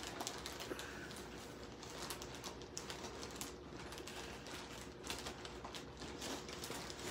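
Tape and plastic packaging being picked at and pulled apart by hand: irregular small clicks, crackles and rustles.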